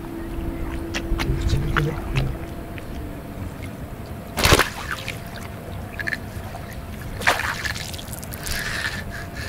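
Lake water sloshing and splashing around a landing net worked by hand in waist-deep water, with a sharp splash about four and a half seconds in and a longer splash at about seven seconds.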